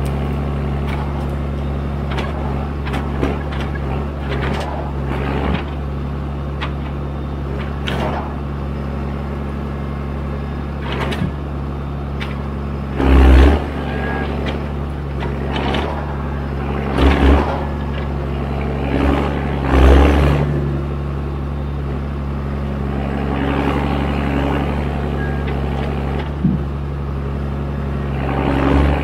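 John Deere 1410D forwarder's 6.8-litre diesel engine, the older, louder pre-Eco3 version, running steadily at working speed. Heavy thuds and knocks break in at intervals, the loudest about 13, 17 and 20 seconds in and again near the end.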